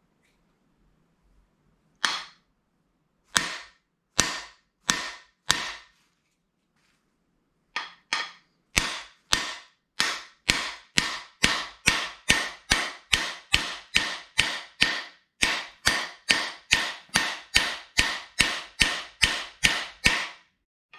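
Hammer blows on a cam bearing installer, driving the front camshaft bearing into a small-block Chevy's cam bore. Five spaced strikes, then a steady run of about three strikes a second.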